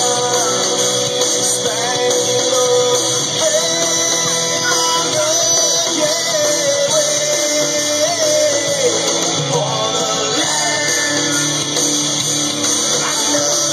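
Rock music with a singing voice and guitar, playing loudly and without a break.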